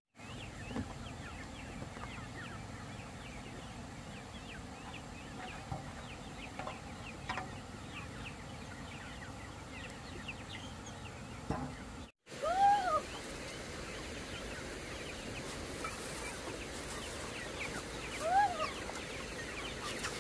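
A flock of chickens clucking and peeping as they crowd around feed, with a couple of louder drawn-out calls in the second half. The sound cuts out for a moment about twelve seconds in.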